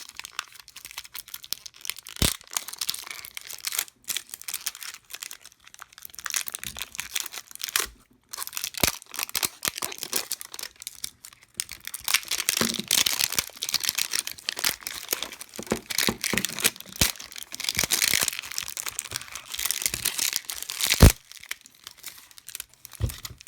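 Plastic packaging being cut open with a knife, crinkling and tearing as it is worked apart, with sharp cracks about two seconds in and a loud one near the end.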